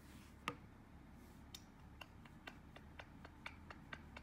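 Faint light taps of a pencil on a paper notepad: one sharper tap about half a second in, then a run of soft taps about four a second.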